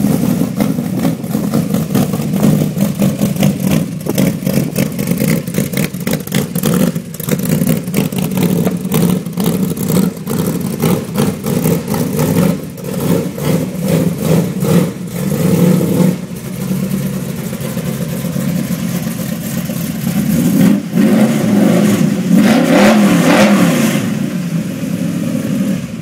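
Hot rod coupe's engine running with a choppy, pulsing exhaust, revved up briefly near the end and then shut off suddenly.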